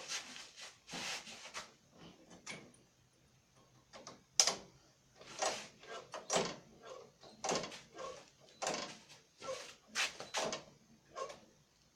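A series of short clunks and scrapes from hands working on a lawn mower's parts. They come irregularly at first, then about one a second through the second half.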